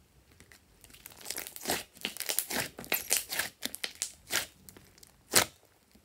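Glossy slime being squeezed and pressed by hand, making a rapid run of sharp clicks and pops that starts about a second in, with one loud pop near the end.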